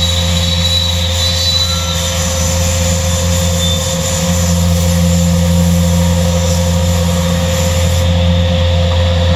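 Industrial CNC panel saw (WARSM-DP5000L beam saw) running in auto mode, a loud, steady machine drone with a deep hum and a fixed higher tone, growing slightly louder about four seconds in.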